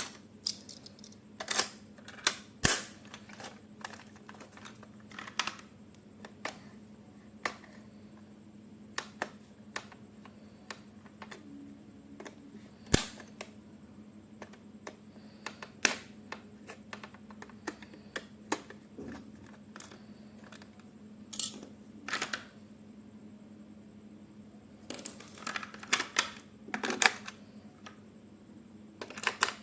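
Hands handling plastic toys and packaging: irregular clicks, taps and light knocks with a few louder clacks, over a faint steady hum.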